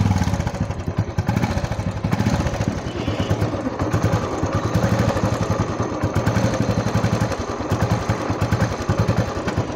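Royal Enfield Bullet 500cc single-cylinder four-stroke engine running just after a kick start, with an even beat of exhaust pulses. The engine has been freshly rebuilt with a new head block, piston and rings and chain set. The mechanic says its sound is now clear, with the earlier tik-tik noise gone.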